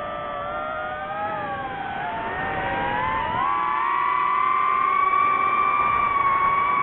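DJI FPV quadcopter's motors and propellers whining: several tones drift and waver in pitch, then about three seconds in rise together into a steadier, higher and louder whine.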